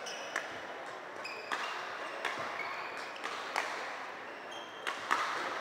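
Badminton shuttlecock hits, about six sharp cracks irregularly spaced roughly a second apart, echoing in a large sports hall, with brief squeaks of court shoes.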